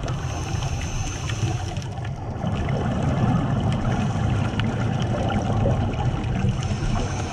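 Muffled underwater noise heard through a camera housing: a steady low rumble with gurgling and small clicks, and a faint high whine that comes and goes.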